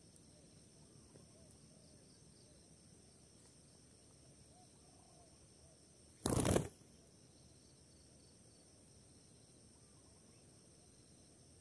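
A spotted dove's wings clattering as it takes off: one loud burst about half a second long, a little past halfway through. Behind it runs a steady, faint, high insect drone.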